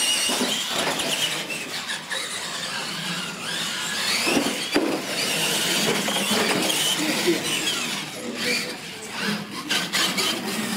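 Electric R/C monster trucks racing flat out on a hard floor: motors and gears whining up and down as they accelerate and slow, with tyres squealing. Two sharp knocks come about four seconds in.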